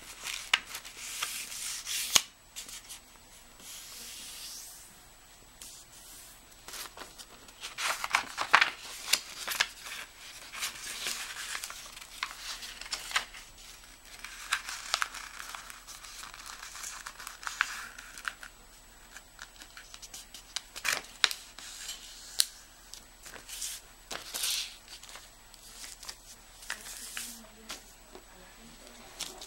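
A sheet of paper being folded by hand on a tabletop: irregular rustling and scraping as the paper slides and its creases are pressed flat, with scattered sharp taps and clicks.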